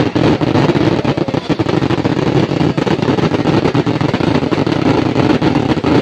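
Ground fireworks going off with a dense, continuous stream of rapid crackles and pops.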